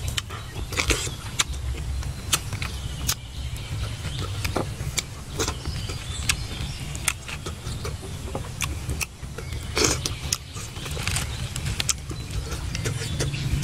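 Close-up eating sounds: a man chewing grilled fish and pulling the flesh from its bones with his fingers, irregular clicks and crackles over a steady low rumble.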